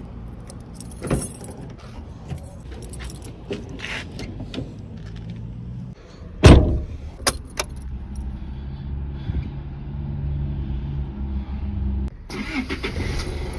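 Car key clicking in the door lock and keys jangling, with the handle and door clicking, then a car door shutting with a loud thud about six and a half seconds in, over a steady low hum.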